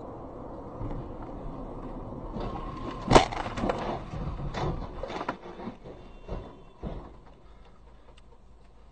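Road noise inside a moving car. About three seconds in comes one loud crash as a car ahead hits and overturns, followed by scattered knocks and clatter of debris that die away.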